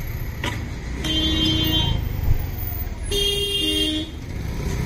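A vehicle horn sounds twice, each blast under a second, the second with two pitches, over a steady low rumble of traffic or engines.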